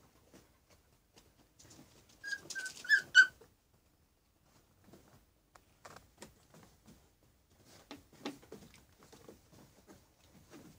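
Puppies squeaking: four or five short, high-pitched yelps in quick succession about two seconds in. After that, faint scuffling and rustling as they wrestle on a blanket.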